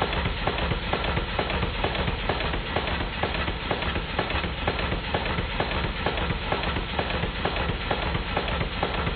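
Model Stuart triple expansion engine running roughly, a fast even beat of clattering knocks. Just about every mechanical part is loose and the high-pressure valve gear is only roughly set, so it is running only after a fashion.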